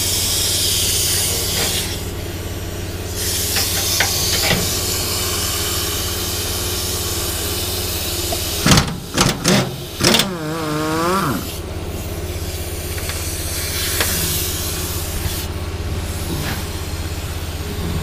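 Pneumatic impact wrench working on the fuel tank strap bolts. Air hisses at intervals and there are a few short, loud hammering bursts a little before halfway, over a steady low machine hum.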